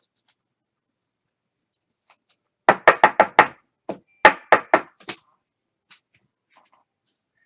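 Two quick runs of sharp knocks on a hard surface, about five and then about four, a second apart.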